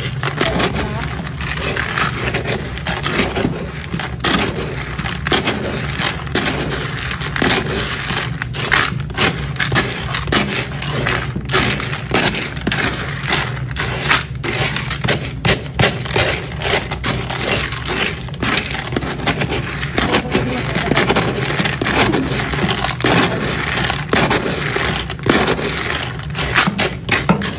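Dry cat kibble rattling and scraping against a plastic scoop and plastic storage bin as it is stirred and scooped: a continuous clatter of many small hard pieces.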